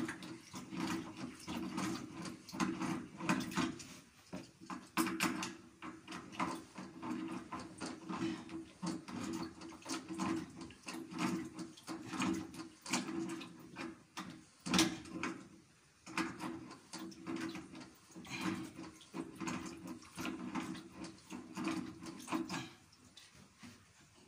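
Pliers clicking and scraping on a stiff brass fitting on a plastic water pipe as it is worked round, in many irregular small strokes, with some water sound.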